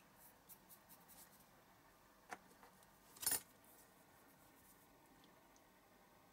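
Faint handling noises from small plastic model parts and a glue tube: a few light clicks in the first second or so, a sharper click a little after two seconds, and a louder brief rustle about three seconds in.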